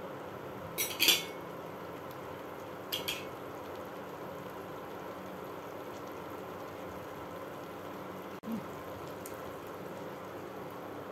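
Cooking utensils clinking sharply against a nonstick wok: a quick cluster of clinks about a second in and another about three seconds in. Underneath is a steady hum.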